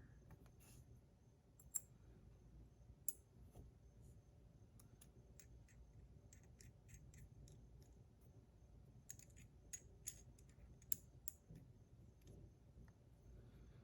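Faint, scattered clicks and light taps of small metal fidget-spinner parts being handled, with a loose run of clicks about nine to eleven seconds in, over near-silent room tone.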